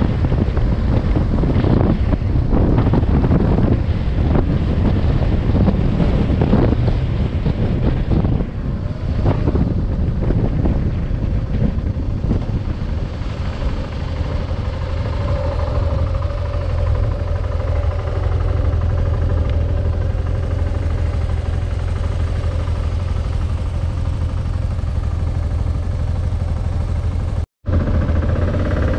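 Adventure motorcycle riding along with wind buffeting the microphone in gusts. About halfway through the wind eases and the bike's engine drone comes through steadily. The sound cuts out for an instant near the end.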